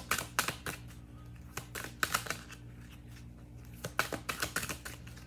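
A tarot deck being shuffled by hand, cards slapping and flicking against each other in three quick bouts of clicking.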